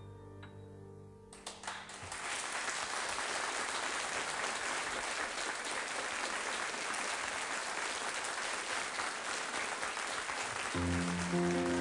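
The last soft piano notes of a ballad die away, and about a second in a studio audience breaks into applause that lasts about nine seconds. Near the end the piano trio, with double bass, strikes up the next tune.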